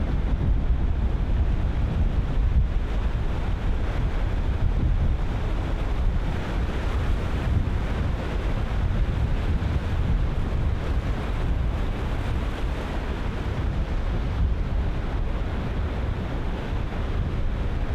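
Ocean surf breaking and washing in a continuous roar, with heavy wind buffeting the microphone in low rumbling gusts.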